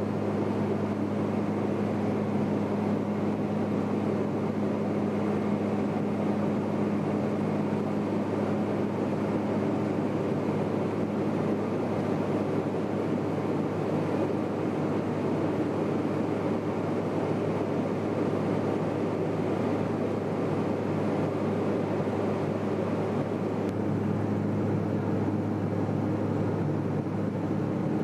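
Aircraft engine droning steadily, heard from inside the plane's cabin, a low even hum over a rushing noise.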